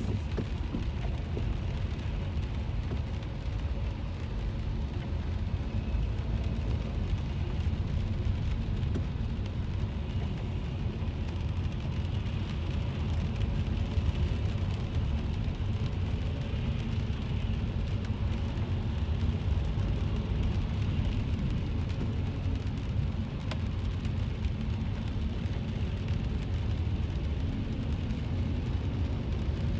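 Steady low rumble of road and engine noise heard from inside a car's cabin, driving in rain, with the rain on the car faintly audible over it.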